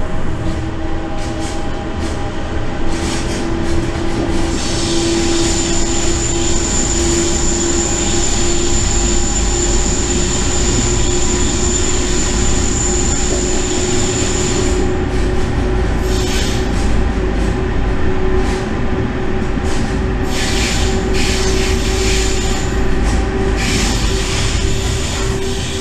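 Electric locomotive running, heard from its driver's cab: a steady rumble of wheels on track with a hum slowly rising in pitch. A high wheel squeal sets in about five seconds in and lasts some ten seconds, then comes back in short spells near the end as the wheels take a curve.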